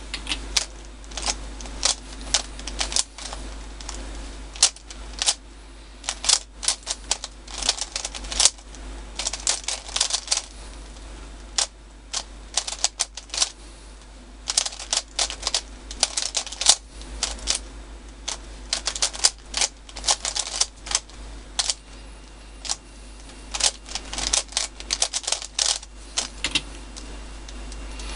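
MoYu Weilong 3x3 speed cube being turned fast during a timed solve: rapid runs of plastic clicking and clacking as the layers snap round, broken by short pauses.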